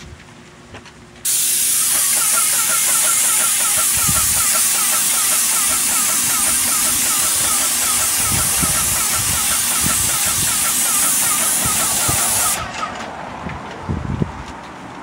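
Graco airless paint sprayer gun on an extension pole spraying paint: a loud steady hiss that starts suddenly about a second in and cuts off suddenly near the end, with a fast rhythmic ticking underneath.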